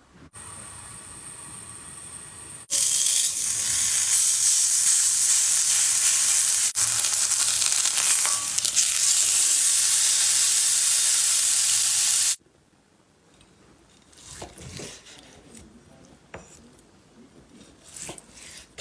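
Steak sizzling in a hot pan: a loud, even frying hiss that starts and stops abruptly, with a quieter hiss before it. After it come a few faint clicks and knocks of utensils.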